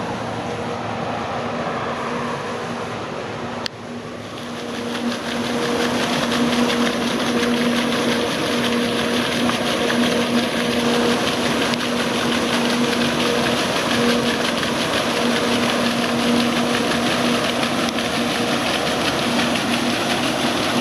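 Water flowing along a mill race. After a cut about four seconds in, it gives way to louder, steady splashing of water pouring over and off a wooden overshot water wheel that turns to make electricity. A faint steady hum runs underneath throughout.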